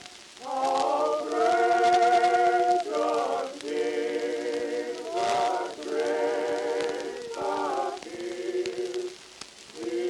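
Slow choral music: voices sing held chords with vibrato in phrases a second or two long, separated by short breaks.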